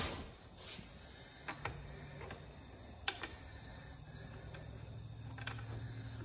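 A few separate sharp metal clicks and ticks from handling a Stihl MS362 chainsaw's chain and guide bar while the chain is fitted, with a faint low steady hum underneath from about a second and a half in.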